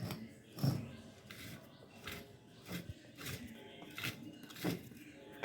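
Irregular metal clicks and knocks, about one every half second, from an old mechanical (non-hydraulic) bus jack being handled and worked.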